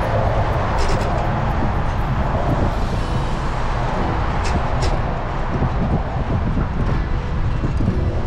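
Steady rushing noise of wind and rolling tyres picked up by a GoPro on a moving bicycle, with a few faint clicks or rattles, about one second in and twice around four and a half to five seconds.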